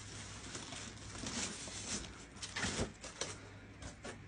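Faint rustling and a few light taps of things being handled.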